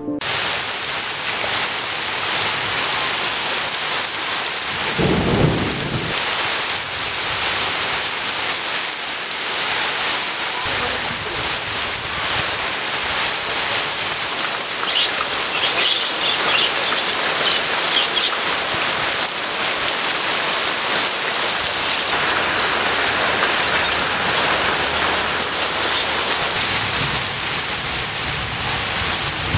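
Heavy monsoon rain pouring steadily, with a low rumble of thunder about five seconds in.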